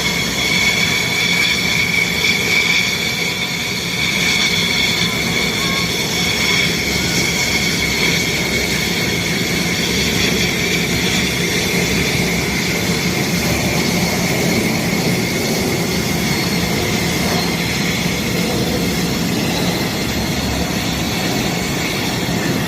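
Jet engines of Thunderbirds F-16 fighters running on the ground, a steady high turbine whine over a continuous rush of exhaust noise.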